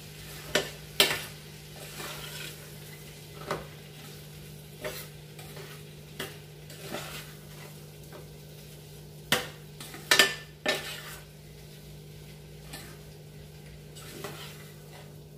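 A metal spoon stirring potato masala in a stainless steel frying pan, over a light sizzle of frying. The spoon clacks and scrapes against the pan every second or two, with the loudest knocks a little past the middle.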